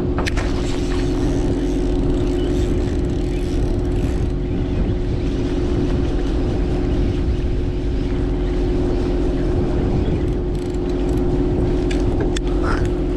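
A boat's engine runs at a steady drone with a constant low hum. A few light clicks and knocks come near the end.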